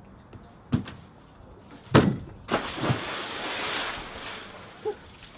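Motor yacht's hull crashing into a moored boat: heavy knocks and thuds, the loudest about two seconds in, then a couple of seconds of noisy scraping and grinding as the hulls rub, and one more knock near the end.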